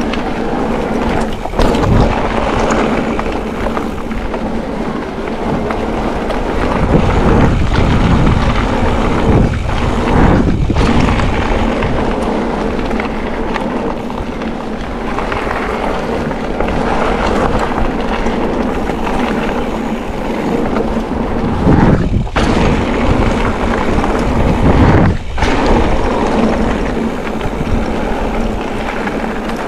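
Mountain bike tyres rolling and crunching over a gravel trail, with wind buffeting the action-camera microphone and occasional knocks as the bike goes over bumps.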